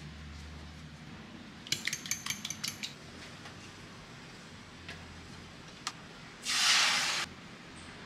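A fork beating eggs in a ceramic bowl: a quick run of sharp clinks for about a second. Near the end comes a brief, loud hiss that stops abruptly.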